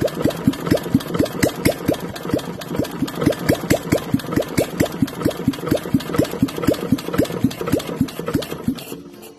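Restored Bernard W 810 engine idling slowly and evenly, about five firing beats a second. The beats stop shortly before the end.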